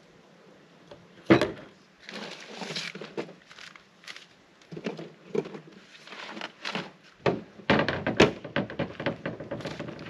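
Camp gear being handled: a sharp knock about a second in, then the lid of a plastic camp cooler opened and shut with thunks and clatter as things are moved inside it. Footsteps on dry pine needles come in toward the end.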